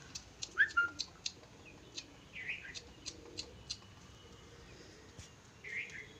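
Birds calling: a short harsh call repeats about every three seconds, with a brief chirp about half a second in. A series of sharp clicks runs through the first few seconds.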